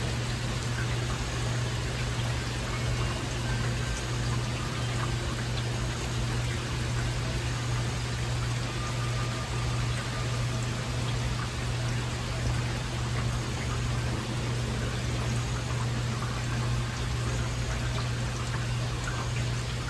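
Heavy rain falling steadily, an even hiss with a steady low hum underneath. No thunder.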